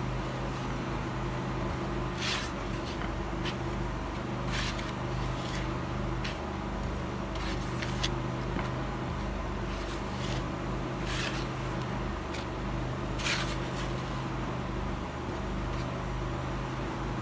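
A spatula and hand stirring a dry flour mixture in a bowl: short soft scrapes and swishes every couple of seconds, over a steady low hum.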